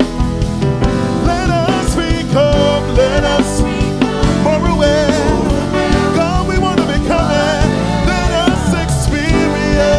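Gospel worship music: a singing voice carrying a melody over steady instrumental accompaniment with bass and sustained chords.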